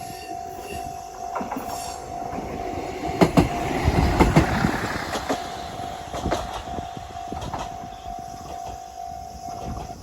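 Japanese level-crossing warning bell sounding steadily while a single diesel railcar passes. The wheels clack over the rail joints, loudest about three to five seconds in. The bell stops near the end as the crossing clears.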